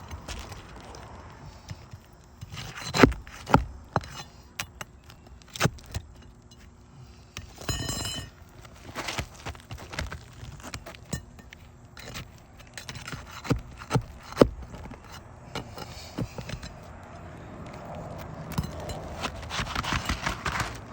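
Shingle removal on an asphalt roof: sharp knocks and clicks of a metal tool prying at the shingle and its nails, with scraping of the asphalt shingle and a ringing metal clink about eight seconds in.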